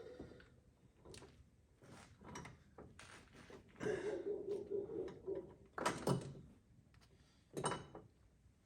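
Faint handling noises: scattered short knocks and rubs as a spark plug wire is drawn and laid across the engine bay. About halfway through, a low, steady droning tone sounds for a second or so.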